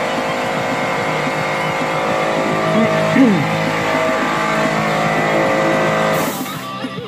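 Air compressor running with a steady hum. About six seconds in, a short hiss sounds and the hum stops.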